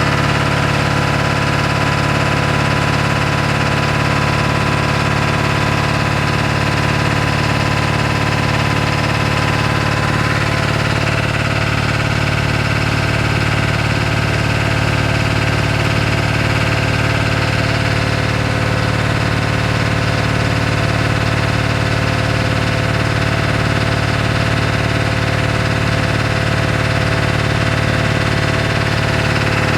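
1997 Ford F-250's 7.3L Power Stroke turbo diesel V8 idling steadily soon after a cold start, running rough and shaking, which the owner puts down to bad injectors.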